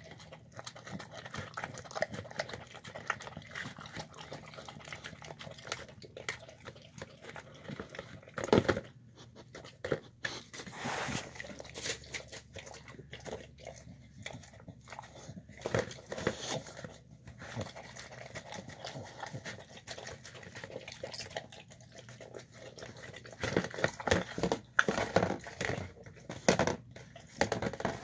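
Dog licking and chewing at the last of its food in a nearly empty plastic tub, with a steady run of irregular wet smacks and clicks. The tub shifts and knocks against the tile floor now and then, and the sounds get louder and busier near the end.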